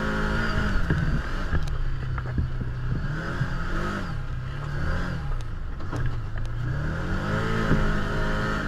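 Can-Am Commander side-by-side's V-twin engine running under way, its pitch rising and falling several times as the throttle is worked, with scattered sharp knocks and rattles over the top.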